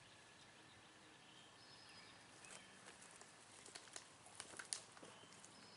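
Near silence with faint outdoor ambience; in the second half, soft scattered crunches of feet shifting on gravel and dry leaves, the loudest near the end.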